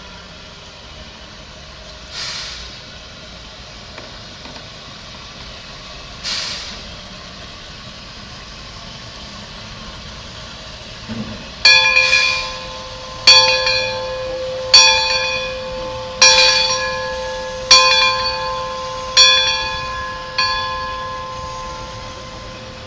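A bell struck seven times, about once every second and a half, starting about halfway through; each stroke rings on with clear steady tones that slowly fade. Earlier there are two short hisses over a low steady background rumble.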